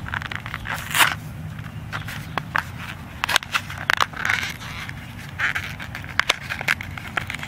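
Stiff plastic blister packaging of a die-cast toy car being pried and twisted open by hand: irregular clicks, crackles and scrapes of the plastic. Underneath is a steady low rumble of wind on the microphone.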